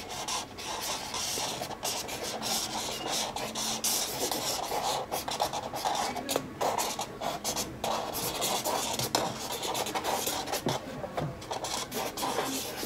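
A thin marker rubbing and scratching over a canvas textured with modeling paste as lines are drawn. It is a run of quick, irregular strokes with short pauses between them.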